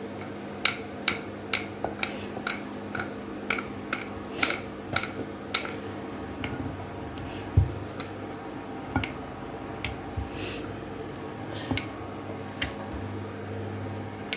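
Wooden rolling pin working a paratha on a stone rolling board: quick light clacks and taps, about two a second for the first few seconds, then sparser, with one louder knock about halfway through.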